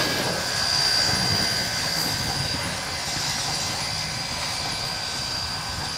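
Pennsylvania Railroad 643, a 0-6-0 steam locomotive, working away along the track, its exhaust and running noise fading as it pulls off, with a thin steady high tone over it.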